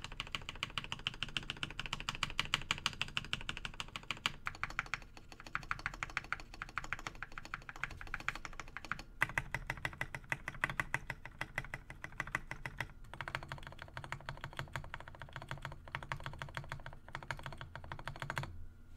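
Fast, continuous typing on a GK61 mechanical keyboard with lubed Gateron Milky Yellow linear switches: a dense run of deep key clacks broken by a few short pauses, stopping just before the end.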